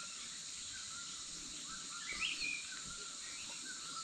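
Outdoor countryside ambience: a steady high insect drone with small birds chirping now and then, one chirp standing out about two seconds in.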